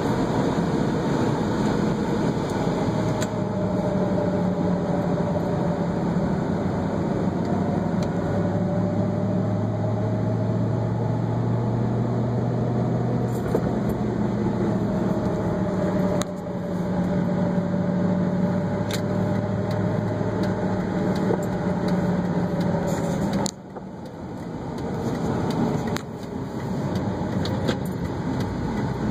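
Car driving, heard from inside the cabin: steady engine and road noise with low engine tones that drift gently in pitch. The noise drops sharply for a moment about three-quarters of the way through, then builds back up.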